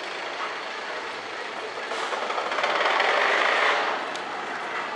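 Steel roller coaster train running along its track, a rushing rumble that grows louder to a peak about three seconds in and then eases off.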